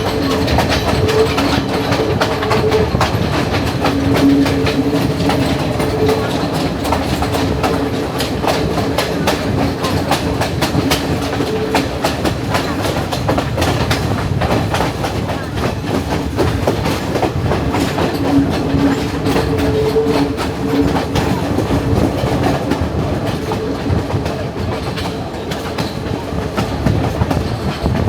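Sri Lankan hill-country passenger train (Ella Odyssey) running, its wheels clattering over the rail joints under a steady rumble. A two-note whine fades in and out, strongest at the start and again about two-thirds of the way through.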